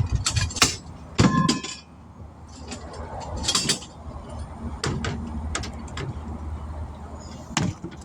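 Hand tools knocking and clanking against metal during a tire change: a handful of separate sharp strikes, one near the start ringing briefly, over the low steady hum of a running generator.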